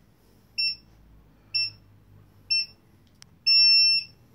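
Reebok GT40 treadmill console beeping its start countdown: three short high beeps about a second apart, then one longer beep, the signal that the belt is about to start.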